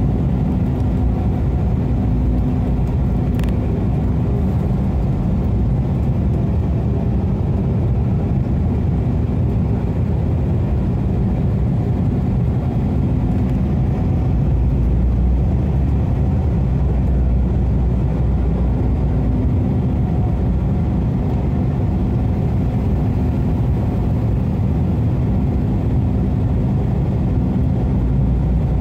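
Steady airliner cabin noise: jet engine and airflow rumble heard from a window seat over the wing during the descent to landing, with a low steady hum that fades out for a while midway and comes back.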